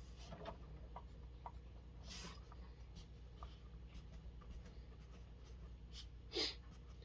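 Faint handling noise of RC truck wheels and tires being worked by hand: soft rubbing and scattered light clicks, with one short louder scrape near the end.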